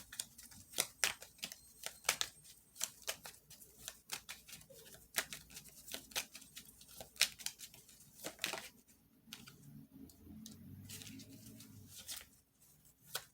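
Tarot cards being shuffled by hand: a quick, irregular run of soft card clicks and slaps, thinning out for a few seconds near the end.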